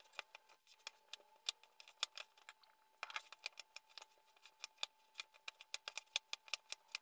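Hands kneading sticky date paste in a ceramic bowl: a quiet, irregular run of small sharp clicks and smacks, several a second, as the moist paste is squeezed and pressed.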